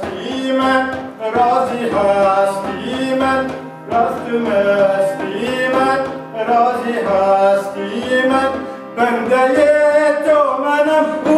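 Live ensemble of clarinet, harmonium and hand-held frame drum playing a melody over a steady drum beat of about two strokes a second.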